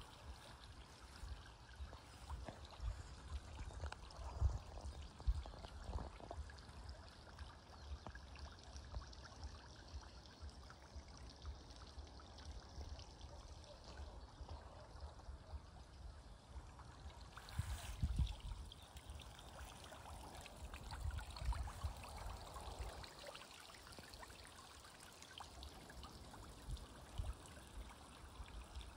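Faint, steady trickle of running water, with frequent low thumps mixed in.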